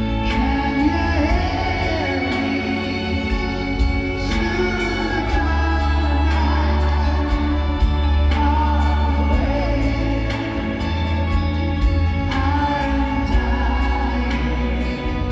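A live band plays a slow ballad with drums, bass, guitars and violins, with singing over it.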